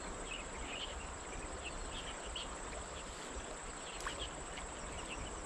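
Steady high-pitched insect trill, with short chirps scattered through it, over a faint low rumble.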